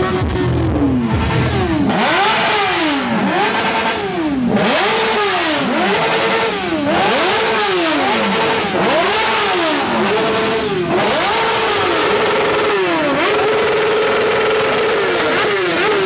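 Motorcycle engine revved again and again, its pitch climbing and dropping a bit more than once a second, then held at a steady high rev for a couple of seconds near the end.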